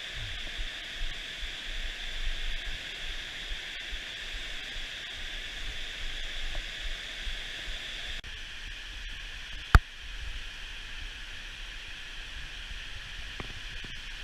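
Steady rush of glacial meltwater running, with a single sharp click a little under ten seconds in.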